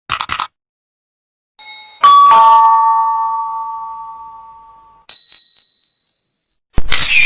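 A string of sound effects. After a couple of brief clicks, a two-note doorbell chime rings 'ding-dong', a higher note then a lower one, ringing out over about three seconds. About five seconds in a single high ding sounds and fades, and near the end comes a short loud noisy burst.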